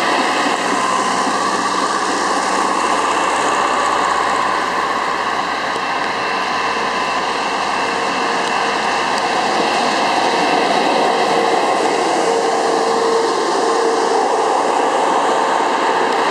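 Rail-mounted track maintenance machines rolling past close by in a line, their diesel engines running and wheels rolling on the rails: a loud, steady mechanical noise, with a steady hum joining about two-thirds of the way through.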